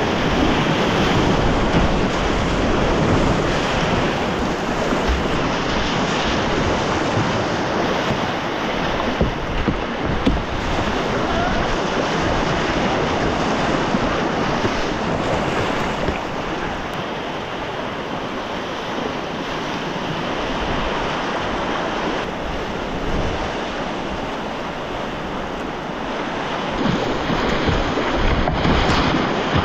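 Loud, steady rush of whitewater rapids around a kayak running them, with splashing from the paddle strokes.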